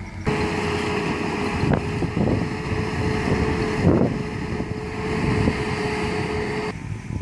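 Diesel engine of a heavily loaded truck running as it crawls over a rough dirt track, with a steady whine over the rumble and wind buffeting the microphone. The sound cuts off abruptly near the end.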